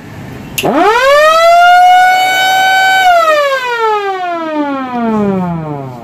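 Electric motor-driven emergency siren being tested. About half a second in it winds up steeply to a steady high wail, holds it for about a second and a half, then slowly winds down in pitch.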